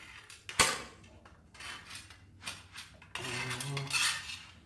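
A car-battery stick welder, with the rod held in vise grips, is being struck against angle iron: a sharp crack about half a second in, then scattered short sputters and metallic clinks, and a longer crackling buzz near the end. The jumper cables are frying rather than the welding rod burning.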